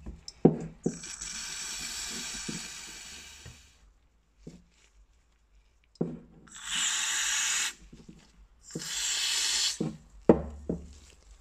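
Aerosol brake cleaner sprayed onto a small threaded caliper bolt in three bursts, a long one that tails off and then two short ones. Small knocks and clicks from handling the can and bolt come between the bursts.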